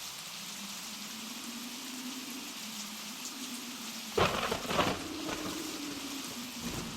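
Steady blizzard wind noise with a low drone, and about four seconds in a log is chopped: two sharp chops about half a second apart.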